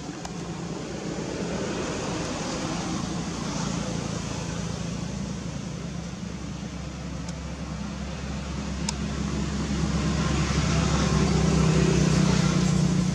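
A vehicle engine droning steadily in the background, growing louder toward the end.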